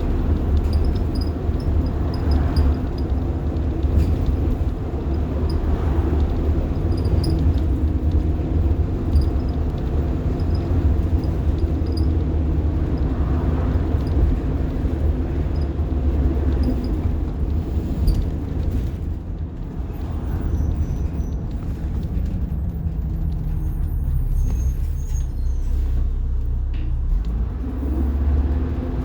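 Rear-mounted diesel engine of a 1990 Blue Bird All American school bus running under way, a heavy low rumble heard from inside the bus. Past the middle the engine note falls away as the bus slows, and near the end it picks up again.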